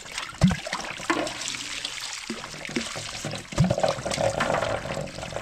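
Water running and splashing steadily, with two dull knocks.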